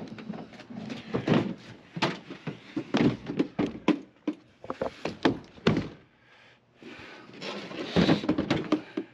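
Repeated knocks and thumps of gear being shifted in a pickup bed as a plastic Igloo cooler is pulled out and set on the tailgate, with a longer scrape about eight seconds in.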